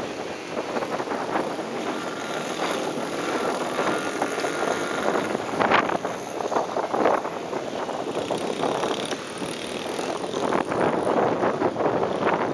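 Small motocross bike engines revving as riders pass over the track, with louder surges about halfway through and near the end; wind buffets the microphone throughout.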